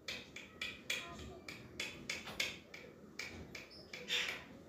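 Alexandrine parakeets biting into watermelon with their beaks: irregular crisp clicks and crunches, about two or three a second, with a louder, longer crunch near the end.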